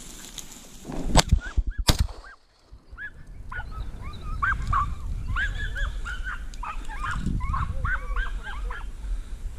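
Two gunshots about a second in, less than a second apart, fired at a rabbit. Then podenco hounds yelp in quick, high-pitched series as they hunt through the cover.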